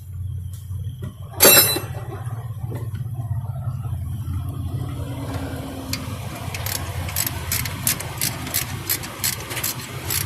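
Low steady rumble of a vehicle engine idling. A single loud metallic clank of a hand tool comes about a second and a half in, and from about halfway a regular series of sharp clicks, roughly three a second, as work goes on under the hood.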